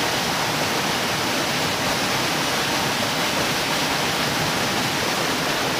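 Small waterfall pouring into a rock pool: a steady, unbroken rush of falling and splashing water.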